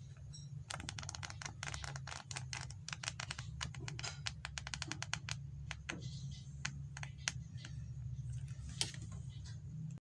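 Paper pages of a hand-drawn flipbook flicking off the thumb in quick succession, a fast patter of papery clicks that thins out after about six seconds, over a low steady hum. The sound cuts off suddenly near the end.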